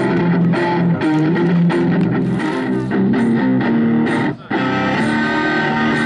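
Double-neck electric guitar playing a blues riff of picked notes over a steady rhythm, with hand-drum taps along with it. The sound breaks off for a split second about four seconds in, then comes back with longer held notes.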